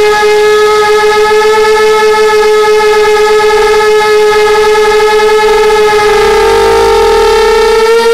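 FPV quadcopter's motors and propellers whining steadily in flight, one high tone with many overtones. The pitch wavers and rises a little near the end as the throttle changes through a turn.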